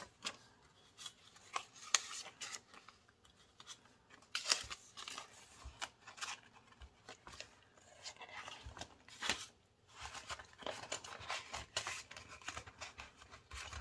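Paper bills and an envelope being handled as cash is stuffed in: quiet, irregular rustling and crinkling with many small sharp crackles and snaps.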